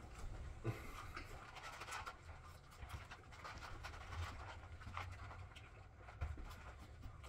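Faint chewing and mouth noises of people eating burgers and fries fast, with many small scattered clicks over a low hum.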